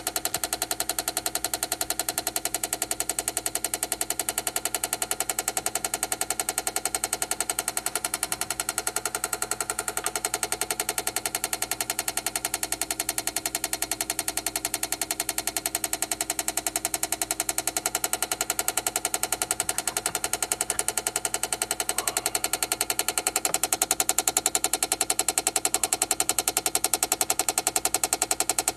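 Chamberlain garage door opener clicking rapidly and without let-up. This is its malfunction, which was cured by replacing the opener's main circuit board.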